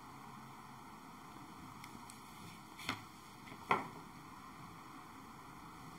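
Tarot cards being handled: two short soft taps less than a second apart about halfway through, over a steady low hiss of room tone.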